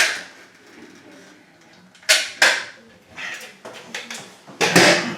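A sheet of cement backer board being handled and set against the wall: a sharp knock at the start, two quick knocks or scrapes about two seconds in, and a longer scraping clatter near the end.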